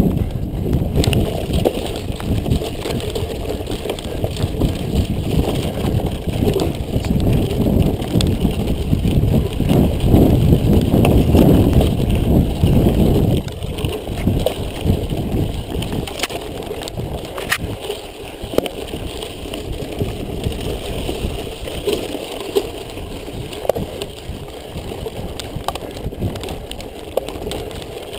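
Mountain bike riding fast over a dirt track and forest trail: wind rushing on the microphone and tyres rumbling, with a few sharp clicks and rattles from the bike. Louder for the first half, then quieter from about 13 seconds in.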